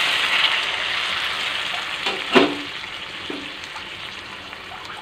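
Water poured into a hot kadai of oil and fried tomato-spice masala, hissing and sizzling on high flame and slowly dying down as the pan cools. A brief knock about two seconds in.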